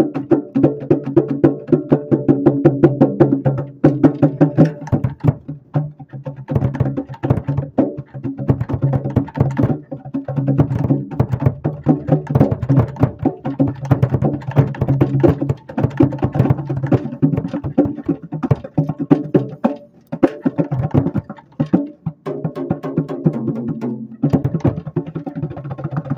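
Drum kit played with a fast run of stick hits, heard from just beneath a Gretsch snare drum, over a steady low ringing tone, with a few brief gaps in the playing.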